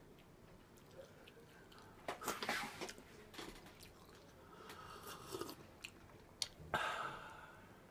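A person slurping instant cup noodles and chewing them, with loud hissy slurps about two, five and seven seconds in.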